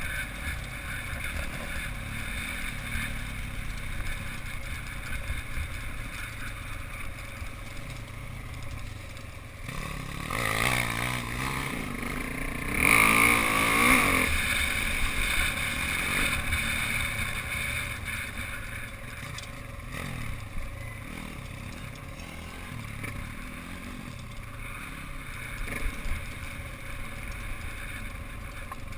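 Pit bike engine running under way on a dirt trail, revving harder for a few seconds about ten seconds in, then settling back to a steadier run.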